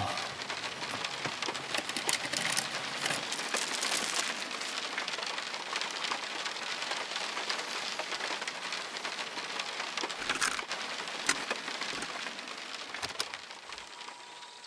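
Rain pattering on the car's roof and windshield, heard from inside the cabin, a steady hiss that eases near the end. Scattered clicks and crinkles of cardboard and plastic packaging being handled sound over it.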